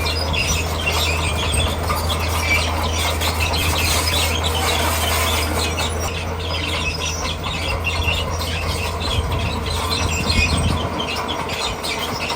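Komatsu D41P crawler bulldozer's diesel engine running steadily under load, with the steel tracks squealing and clattering as it works over rock.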